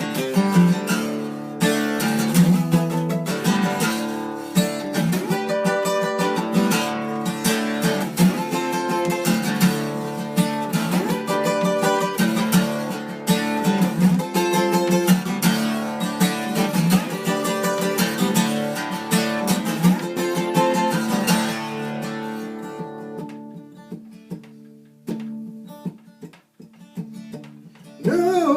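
Acoustic guitar playing an instrumental break, strummed with picked notes; near the end it thins out to a few soft, sparse notes.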